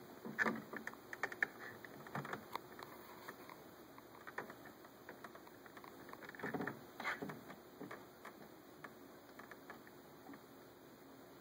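A raccoon's claws and paws scrabbling and tapping on the window glass and a hummingbird feeder as it climbs up to lick the nectar: irregular clicks and scratches, with the busiest bursts right at the start and again about seven seconds in.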